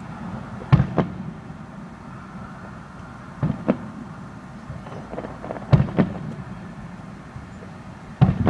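Fireworks going off at a distance: sharp bangs, mostly in pairs about a third of a second apart, three pairs and then one more bang near the end.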